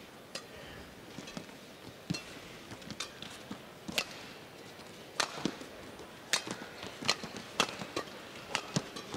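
Badminton rackets striking a shuttlecock back and forth in a rally: sharp, short hits at irregular spacing, roughly one a second, over faint arena hum.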